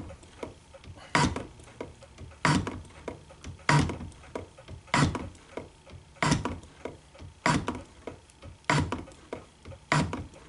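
Shop-built hand shaper taking cutting strokes through a 1018 steel block, cutting a key slot. Each hand-pulled stroke ends in a sharp metallic clack, about eight of them at a steady pace a little over a second apart, with a light scrape of the tool between.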